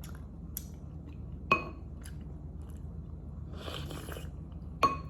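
Mukbang eating sounds: a handful of sharp ringing clinks of a utensil against a plate, with a brief noisy burst of chewing a little before four seconds in. A steady low hum runs underneath.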